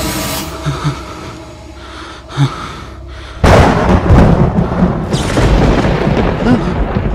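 Horror film sound design: a few soft low thumps, then a sudden loud rumbling boom about three and a half seconds in that keeps on rumbling.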